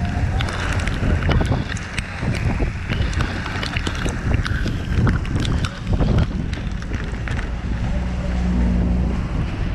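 Strong, gusty wind buffeting the microphone near a large tornado, with many sharp clicks and knocks scattered throughout and a steady low hum underneath.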